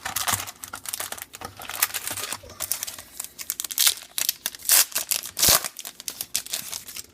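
Wrapper of a trading card pack being torn open and crinkled, an irregular run of crackling and tearing, loudest a little past the middle.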